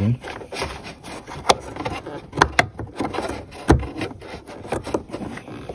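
Irregular sharp clicks, knocks and scraping of hands working at plastic parts and the retaining clip of the fuel pump control module to pull it out.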